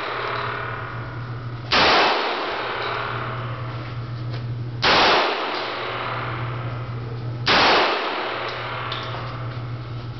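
Mauser C96 'Bolo' broomhandle pistol in 7.63×25 Mauser firing three single shots about three seconds apart, each shot ringing on in the indoor range.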